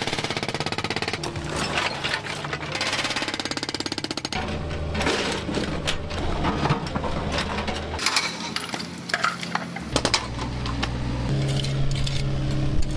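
Hydraulic breaker on a mini excavator hammering into concrete with a fast, even rattle of blows. From about four seconds in, excavator digging: the engine runs under irregular knocks and scrapes of the bucket through soil, rock and rubble.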